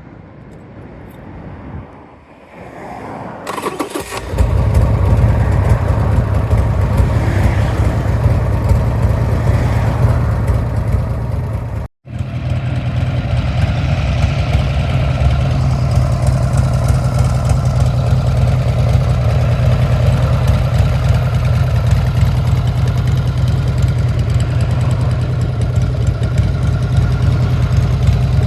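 Buell S1 Lightning's 1203 cc air-cooled V-twin being started: a couple of seconds of cranking, then it catches about four seconds in and settles into a steady idle.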